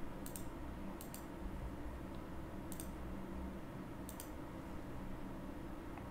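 Computer mouse clicks, about four spread over a few seconds, each a quick double tick of press and release, over a low steady room hum.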